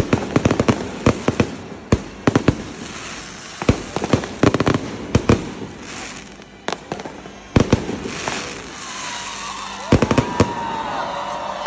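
Fireworks going off in rapid clusters of sharp bangs and crackles, with short lulls between volleys. From about eight seconds in, a wavering whistle sounds under the bangs.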